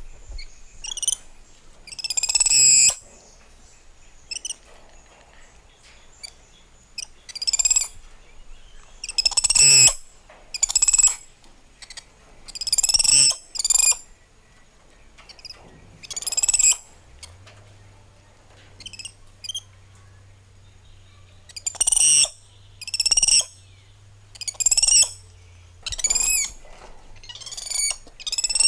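Spider monkeys calling: about a dozen short, high-pitched squeaky calls, each under a second long, coming at irregular intervals.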